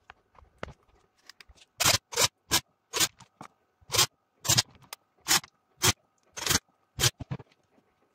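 Cordless drill-driver run in about ten short bursts, one every half second or so, driving the screws that close the plastic housing of a Parkside impact wrench. A few light clicks come first, as the housing is handled.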